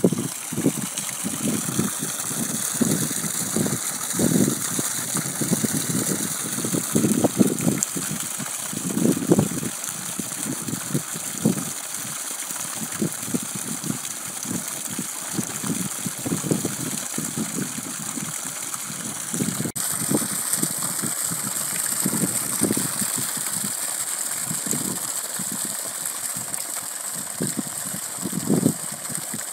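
Water gushing from the open end of an irrigation pipe and splashing into a flooded planting pit: a steady hiss with uneven low rumbling. The sound changes abruptly about two-thirds of the way through.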